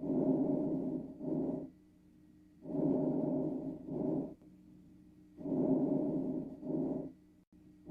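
Recorded lung breath sounds as heard on auscultation: three breathing cycles about every 2.7 seconds, each a longer breathy sound followed after a brief pause by a shorter one, over a faint steady hum.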